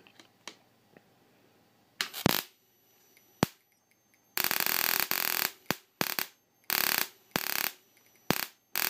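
High-voltage sparks from a flyback-transformer supply with a capacitor connected, arcing into a xenon flash tube. A few sharp snaps come in the first half, then about four seconds in a loud crackling buzz starts, breaking off and restarting in a string of short bursts.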